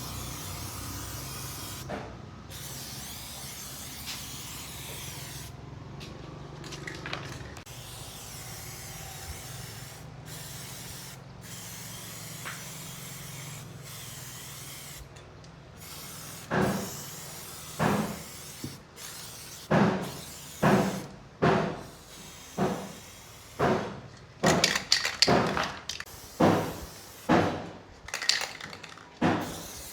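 Steady hiss and low hum, then from about halfway a run of regular sharp blows, roughly one to two a second, each with a short ringing tail, like a hand tool striking wood or metal.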